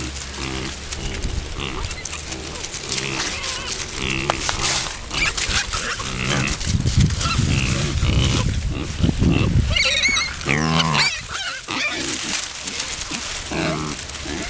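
Baby pigs grunting in a rapid series of short, low, burp-like calls.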